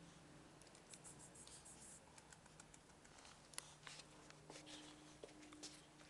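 Faint, scattered clicks and scratches of miniature pinschers' claws on a tiled floor as a puppy and an adult dog move about, with one sharper tick about midway.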